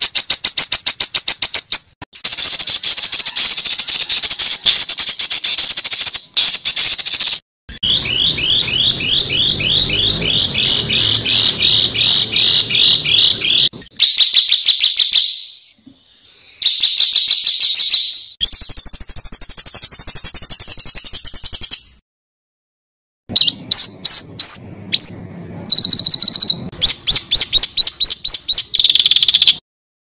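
Songbird song made of fast, harsh repeated notes in rapid runs: several recordings spliced together, each starting and stopping abruptly with short silences between them.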